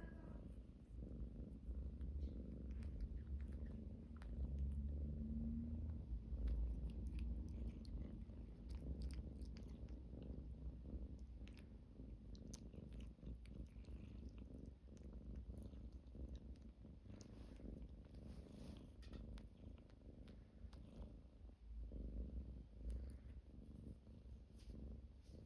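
Domestic cat purring close to the microphone: a steady, low rumble, a little louder a few seconds in, with faint scattered clicks.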